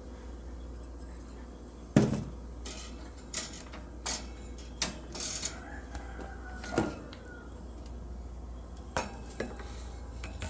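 Scattered sharp clinks and knocks of hard objects being struck, about eight in all, the loudest about two seconds in. A steady low hum runs underneath.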